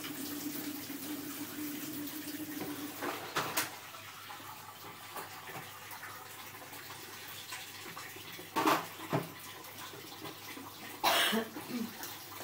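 Water running from a kitchen tap, with a low steady hum for the first few seconds and a few short knocks and clatters, the loudest about two-thirds of the way through and near the end.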